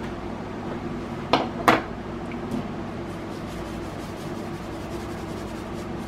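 Two sharp knocks about a second and a half in, close together, with a fainter third shortly after, over a steady low hum.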